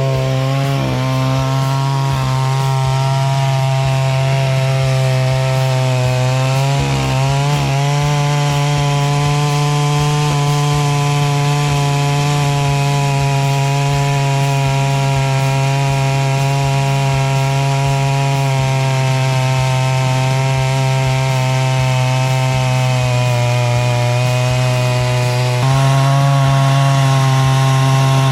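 Holzfforma G660 92cc chainsaw on an Alaskan chainsaw mill, running steadily at high revs under load as it rips lengthwise through a log. The pitch dips briefly about seven seconds in, and the saw gets louder near the end.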